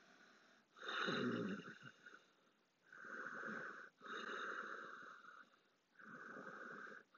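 A person breathing slowly and deeply in and out, with each breath clearly audible: about five long breaths of roughly a second each, separated by short pauses, in the steady rhythm of deliberate yoga breathing.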